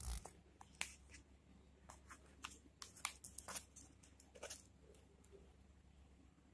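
Faint, scattered clicks and crackles of stiff paper card being handled, its folded flaps being turned and held open.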